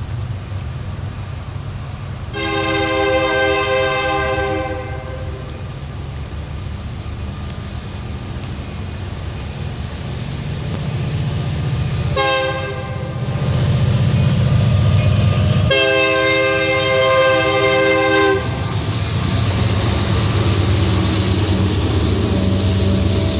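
Freight train's diesel locomotive sounding its horn three times, long, short, then long, as it approaches a grade crossing. A steady low engine rumble grows louder about halfway through as the locomotive draws level and passes.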